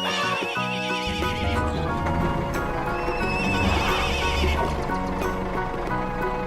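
Background music with a steady beat, overlaid twice by a high, quavering cry lasting about a second and a half each, one at the start and one midway.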